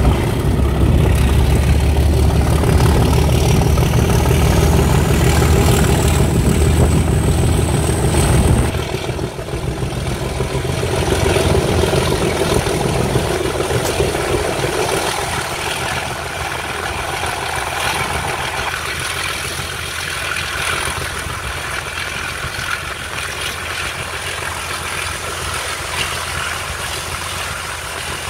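English Electric V12 diesel engine of a Class 37 locomotive working hard as the train accelerates from a standstill: a deep, heavy rumble with a high whine that rises over the first eight seconds and then holds steady. About eight and a half seconds in, the low rumble drops away sharply and the running continues quieter.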